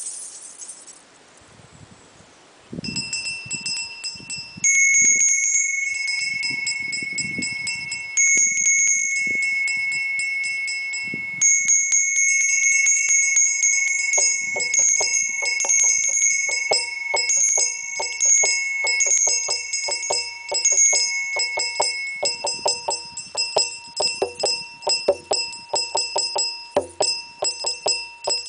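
Small brass hand bells ringing, starting about three seconds in: bright struck tones that ring on for many seconds, then a quicker, steadier run of repeated strikes from about halfway.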